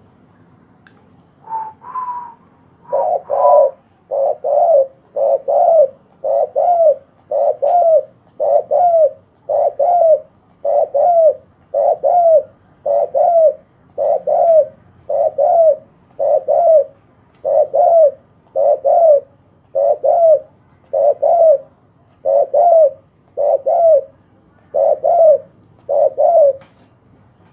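Spotted dove cooing loudly in a long, steady series: two higher notes about a second and a half in, then double-noted coos repeated about once a second until near the end.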